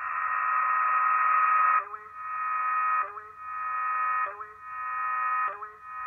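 Shortwave reception of the G06 numbers station over a WebSDR, near 4460 kHz: a steady buzzing tone built of several pitches, broken off and restarted about every second and a bit, each segment starting with a short upward sweep.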